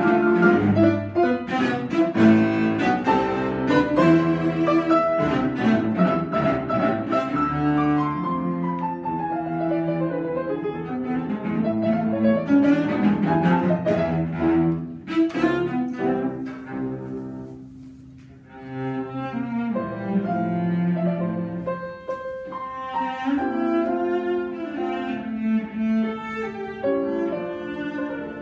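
Cello and Yamaha grand piano playing classical music together, the cello bowed. The music thins to a brief quiet point about two-thirds of the way through, then picks up again.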